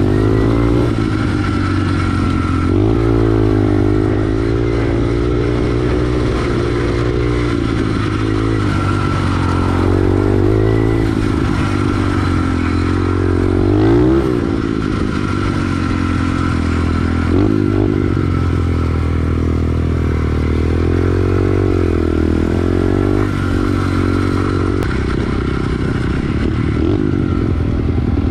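SSR 110 pit bike's single-cylinder four-stroke engine being ridden, its pitch rising and falling over and over as the throttle is opened and eased off, with a sharp rev about halfway.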